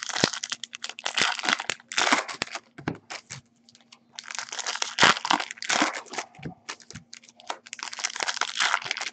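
Topps Platinum football card packs being torn open and their wrappers crinkled by hand, in irregular rustling bursts with two short pauses.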